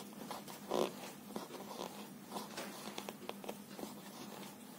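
Faint scratching and small irregular clicks of a fine crochet hook drawing cotton thread through loops, with hands brushing over paper; one louder rustle about a second in.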